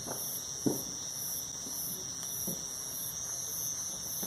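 Night insects calling: a steady high buzz with a higher chirp pulsing about twice a second. A few faint short knocks sound during it.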